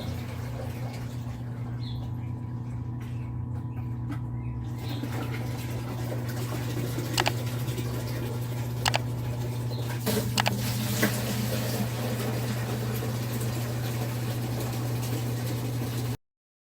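GE washing machine pumping out its wash water: a steady low motor hum, with a few sharp clicks in the middle. The sound cuts off abruptly near the end.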